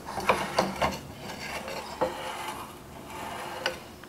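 Handling noise: several light knocks and clicks with rubbing in between, in the manner of plates or the camera being handled.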